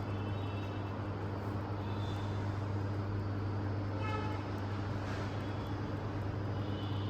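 Steady low hum over constant background traffic-like noise, with a brief horn-like toot about four seconds in.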